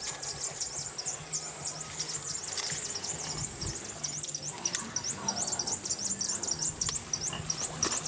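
Continuous rapid high-pitched chirping from small animals, several short chirps a second.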